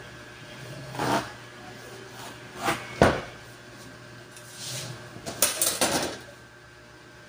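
Fabric being moved and smoothed on a wooden worktable: a few short rustling swishes, with a sharp knock about three seconds in.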